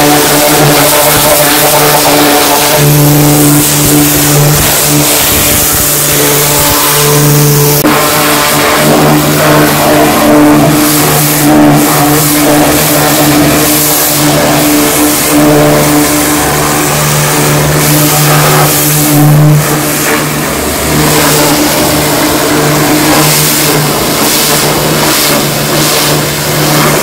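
Industrial high-pressure washer (250 bar, 7.5 HP) spraying a jet of water onto a truck: a loud, continuous hiss over a steady machine drone that grows stronger at times.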